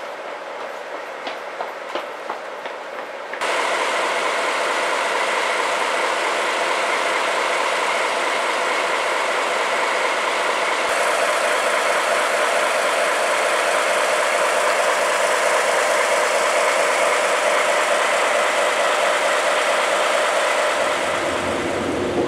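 Quiet station background with a few clicks, then from about three seconds in the loud, steady running of a JR Freight DE10 diesel locomotive's V12 engine close by. A deeper rumble joins near the end.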